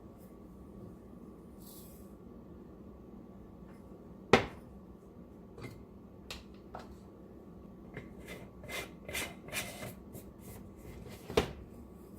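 Crushed eggshells and a glass jar being handled: scattered light clicks and short rattles, with a sharp knock about four seconds in and another near the end.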